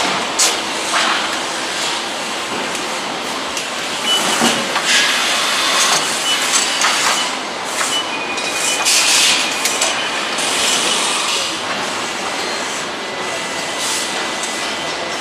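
Factory-floor machinery noise in a motorcycle engine assembly plant: a steady mechanical din with repeated bursts of hiss and scattered clicks and clanks.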